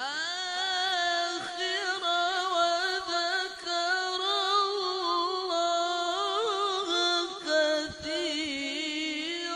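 A male qari reciting the Quran in the melodic tilawah style, singing into a microphone. He opens with a rising swoop and holds one long, high line full of small ornamental turns of pitch.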